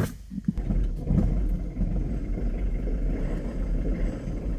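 Camper van engine catching about half a second in and then idling steadily: it is being restarted after its starter battery went flat.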